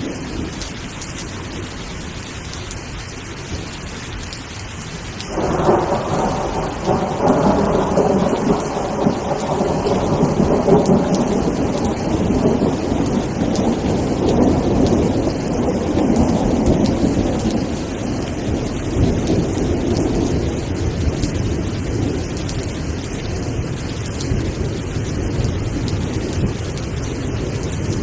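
Steady rainfall with a long rolling peal of thunder that breaks in suddenly about five seconds in and slowly rumbles away over the following fifteen seconds or so.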